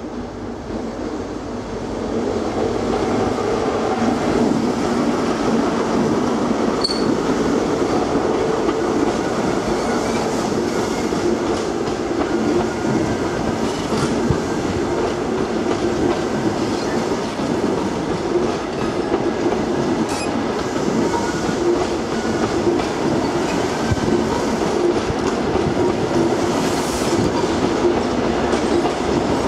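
An InterCity 125 (HST) with Mark 3 coaches rolling over a railway bridge overhead. The wheels make a steady rumble with scattered sharp clicks, and the sound grows loud about two seconds in and stays so as the coaches keep passing.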